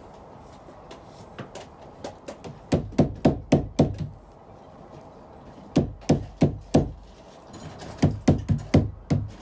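A mallet knocking plastic push-on edge trim onto a wall panel's edge, in three runs of four to six quick blows, about three or four a second.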